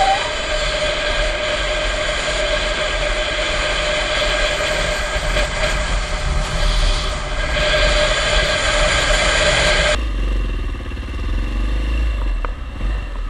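Motorcycle riding at a steady speed, heard from a helmet camera: a steady mix of engine and wind noise with a few constant tones. About ten seconds in the sound cuts to a quieter ride on a Yamaha motorcycle in traffic, mostly a low rumble.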